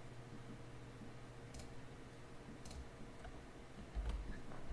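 A few faint, separate clicks from a computer mouse and keyboard, roughly a second apart, over a low steady hum.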